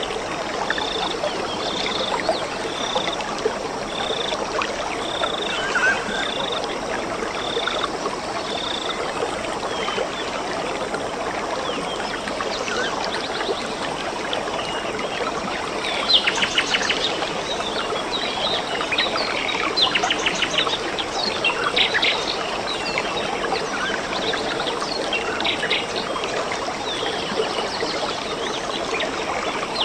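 Running water with birdsong over it. One bird repeats a short high note about once a second for the first nine seconds or so, then several birds chirp and trill.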